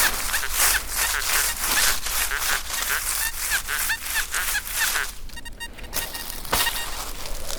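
Dry leaf litter rustling in a steady rhythm of steps, about two to three a second, with short high chirps over it. About five seconds in, the rustling pauses and a brief pulsing electronic-sounding tone is heard.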